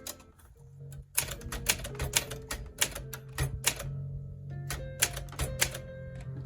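A 1960 Olympia SM4 manual typewriter being typed on: a quick, uneven run of sharp typebar strikes starts about a second in, with a short pause midway. Background music with steady notes plays underneath.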